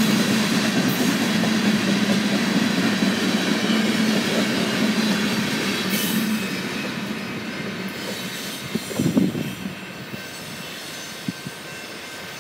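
Loaded coal hopper cars of a freight train rolling past, their wheels running on the rails with a steady noise. The sound drops away after the last car goes by about halfway through, leaving a quieter fading rumble. A short low thud comes about three quarters of the way in.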